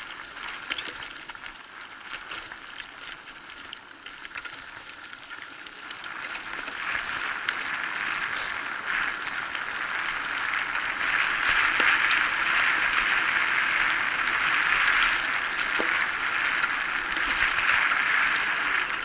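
Electric bike rolling over a dirt forest trail: a steady rush of tyre and wind noise with scattered small clicks and rattles, getting louder from about six seconds in.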